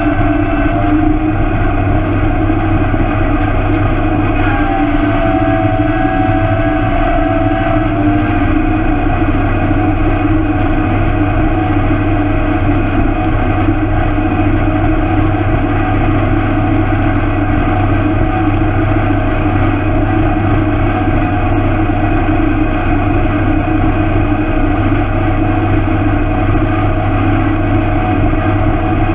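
Tractor engine running steadily at working speed while pulling a ten-wheel hay rake, a constant low drone.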